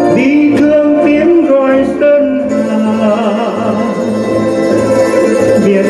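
A man singing a Vietnamese song over instrumental accompaniment.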